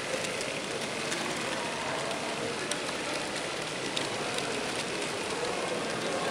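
Rivarossi model Union Pacific Big Boy locomotive running along the track: a steady whirring of its motor and gears, with a few light clicks of the wheels over the rail.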